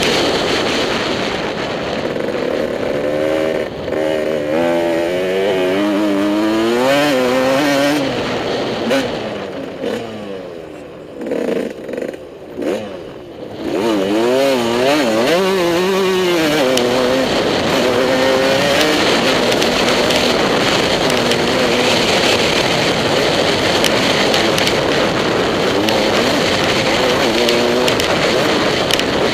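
Motocross bike engine revving hard and falling back again and again as the rider works the throttle and gears around the track. Roughly ten to fourteen seconds in it drops off and is blipped in a few short bursts before pulling hard again.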